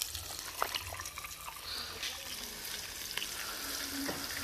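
Flour-breaded mojarra frying in hot oil in a steel pan: a steady sizzling hiss with scattered crackles, growing stronger near the end as the fish settles into the oil.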